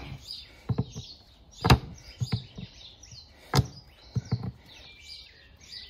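Sharp clicks of farrier's nail pullers gripping and levering a stubborn old horseshoe nail out of a horse's hoof wall, one or two clicks about every second. Birds chirp faintly in the background.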